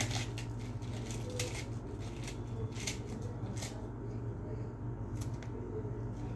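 Metal spoon stirring and scraping a potato and onion mixture in a frying pan, in quick irregular strokes that thin out briefly past the middle, over a steady low hum.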